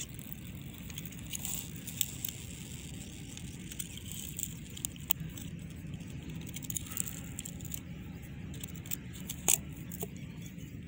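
Screwdriver scraping and prying at the plastic case of a Rain Bird 751 golf rotor to get the rotor assembly out, heard as scattered small clicks and scrapes. A steady low rumble runs underneath.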